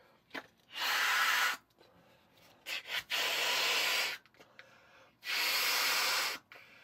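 A person blowing up a balloon by mouth: three long, hissing blows of about a second each, a couple of seconds apart.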